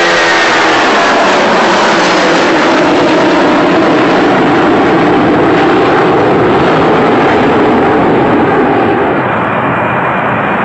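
Loud, steady roar of an aircraft engine, a recorded sound effect on the soundtrack. A falling pitch glide fades out over the first two seconds, and the roar eases slightly near the end.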